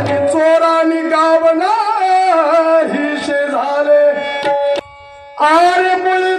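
A voice singing a devotional melody, its held notes bending and sliding, over instrumental accompaniment. The voice drops out for about half a second near the end, leaving only the accompaniment's steady tones, then comes back in.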